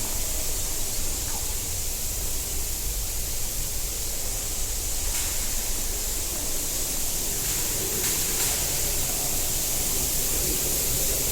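Heavy artificial rain pouring steadily from the ceiling of the Rain Room installation, a dense, unbroken rush of falling water like a storm.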